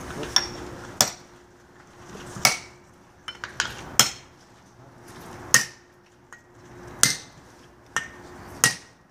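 A hand hammer striking steel plugs and feathers (wedges) driven into a row of drilled holes in a stone block to split it. It rings metal on metal, one hard blow about every second and a half, with a few lighter taps between.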